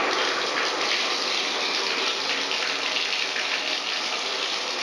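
Water running steadily from a newly installed bathtub spout into the tub, the faucet being tried out after installation.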